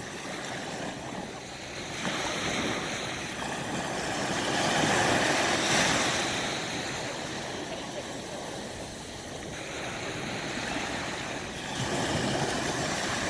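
Sea waves washing onto a shore, mixed with wind, swelling to a peak about five seconds in and building again near the end.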